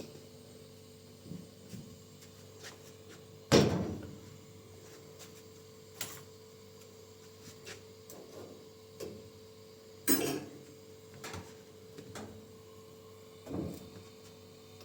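Scattered knocks and bumps of things being handled, as from a drawer, cupboard or door, with a loud thump about three and a half seconds in and others near ten and thirteen seconds, over a faint steady hum.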